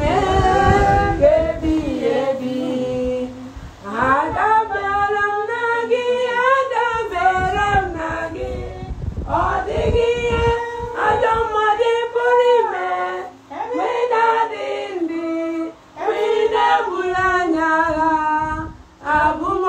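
Several people singing together without instruments, women's voices prominent, in sung phrases with short breaks between them.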